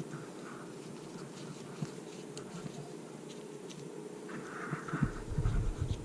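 Fingers working and tucking the end of a paracord into a knot, with small clicks and rustles over a steady low hum; louder low handling thumps and rustling come in the last second.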